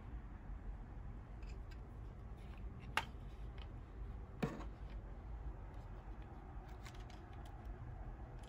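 LEGO bricks clicking and rattling lightly as a built model is handled, with two sharper clicks about three and four and a half seconds in, over a steady low hum.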